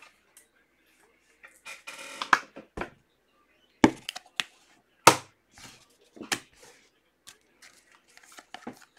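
Trading cards and their plastic packaging being handled on a tabletop: scattered sharp clicks and taps with some crinkling, and three louder knocks in the middle.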